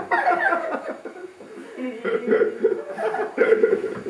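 People laughing and chuckling; the laughter eases about a second in and picks up again around two seconds.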